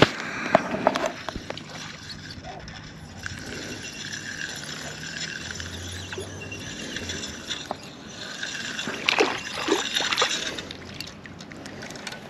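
A bass dropped back into the pond hits the water with a splash at the very start, followed by softer sloshing of the water.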